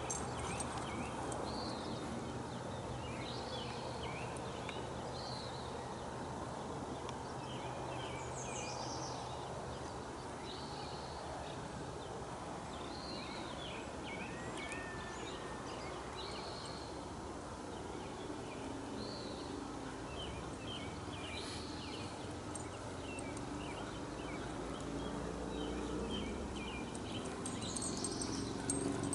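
Small birds chirping in short, scattered calls throughout, over a steady background hum.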